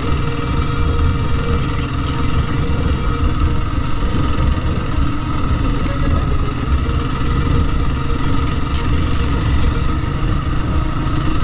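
Motorcycle engine running at fairly steady revs while under way, its tone holding level throughout, over a heavy, uneven low rumble.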